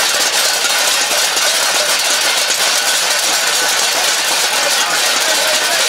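A crowd beating empty stainless-steel plates with ladles and other metal utensils all at once: a loud, continuous metallic clatter. It is a hunger protest, empty plates banged to demand food aid.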